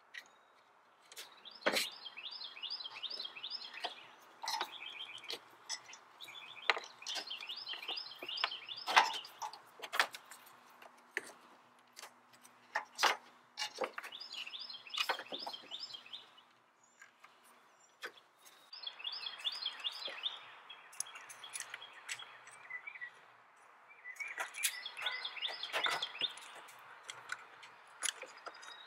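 A bird singing in repeated phrases of quick high chirps, each a few seconds long, about every five seconds. Scattered sharp clicks and knocks come from hands and pliers working on the car's radiator hoses, clamps and plastic fan shroud.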